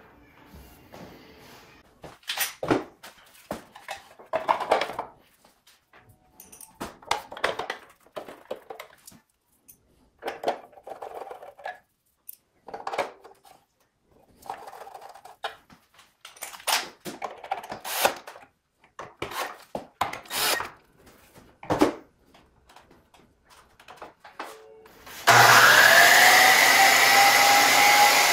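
Short spurts of a cordless drill-driver fastening screws, with clicks and knocks as the belt cover and parts are fitted back on the saw. Near the end the DeWalt DW717 sliding miter saw's motor is switched on, freshly fitted with new armature bearings: it spins up with a rising whine that levels off into a loud steady run.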